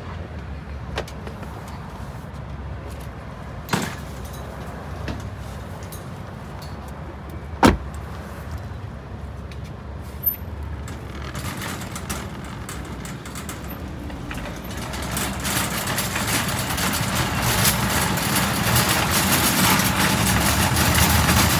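Car on the move: a steady low engine and road rumble with a few sharp knocks in the first half, one of them loud. From about halfway a hissy tyre and road noise grows steadily louder.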